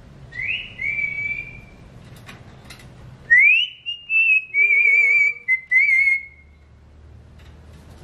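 Alexandrine parakeet whistling: two short rising whistles near the start, then after a pause a loud upward sweep followed by about two seconds of wavering, warbled whistles.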